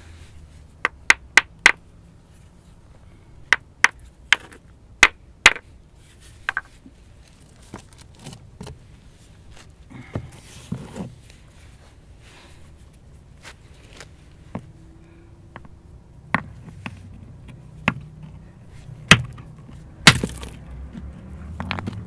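Stone knapping: a hammerstone striking a stone core, sharp hard clacks in quick clusters, several in a row near the start, then scattered single strikes with two loud ones near the end.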